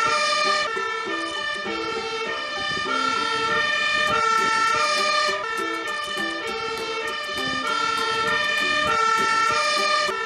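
Fire engine's two-tone siren, switching back and forth between a high and a low note, as an aerial-ladder fire truck pulls away.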